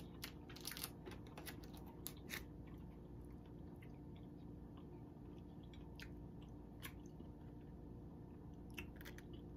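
Faint crinkling of a thin plastic lollipop wrapper being handled: a quick flurry of crackles in the first couple of seconds, then a few single crinkles later on.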